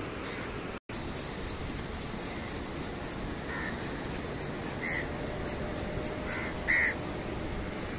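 Crows cawing a few short times over a steady rushing background, the loudest call near the end.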